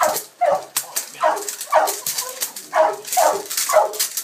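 Three-month-old Malinois puppy barking over and over, about seven short high barks that each drop in pitch, roughly two a second.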